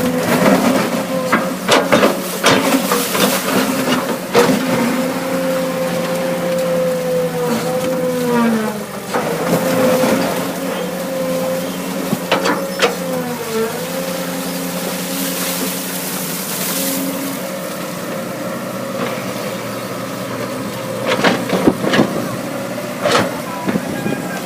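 Caterpillar excavator's diesel engine running steadily while digging, its pitch sagging briefly twice, about eight and a half and thirteen and a half seconds in, with knocks and clanks scattered through.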